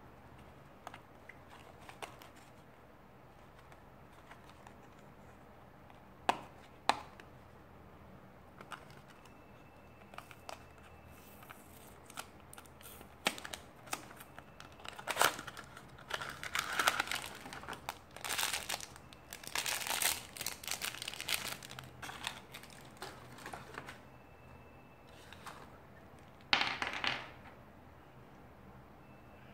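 A small cardboard blind box being opened and its foil blind bag torn and crinkled by hand. There are two sharp snaps early on, then busy crinkling and tearing for several seconds in the middle, and one last crackle near the end.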